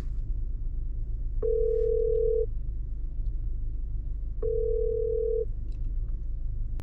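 Telephone ringback tone heard through a smartphone's speaker, the call ringing and not yet answered. It is a steady single tone about a second long, sounding twice three seconds apart, over a low steady rumble.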